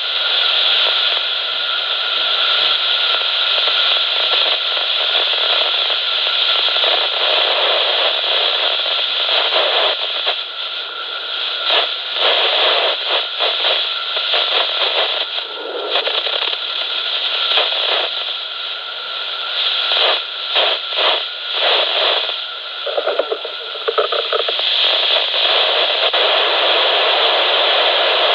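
Unidentified UHF signal on 458.550 MHz heard through a Wouxun KG-679E handheld receiver: a steady radio hiss with a faint steady whistle underneath. About 16 s in comes a whoosh, and from about 20 to 23 s a quick rattling, after which the whistle stops.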